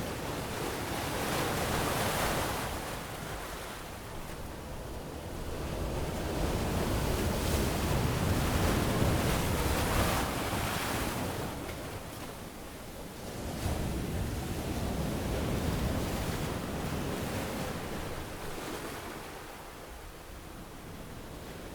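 Ocean waves breaking and washing up a sandy beach, the surf swelling and falling away in slow surges: a short one about two seconds in, a long one through the middle, another a little after that, easing off near the end.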